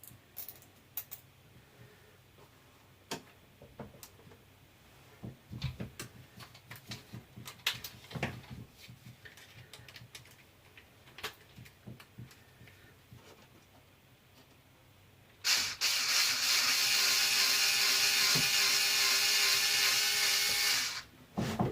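Small metal screws and plastic parts being handled, with scattered light clicks. About fifteen seconds in, a cordless electric screwdriver runs steadily for about five seconds, driving a screw into the plastic wheelie-bar mount, then stops.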